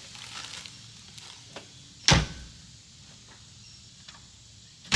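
Chevy G20 van doors being slammed shut: one loud slam about two seconds in and another near the end.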